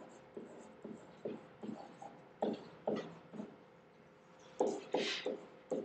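Stylus tapping and scratching on a writing tablet as words are handwritten: a string of light taps, with a longer scratch about five seconds in.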